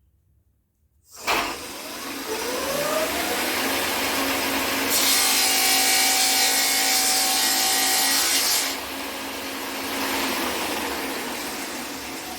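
ShopSmith Power Pro switched on about a second in, its motor speeding up with a climbing whine, then a saw blade cutting through wood for about four seconds from around five seconds in, after which the machine runs on without load.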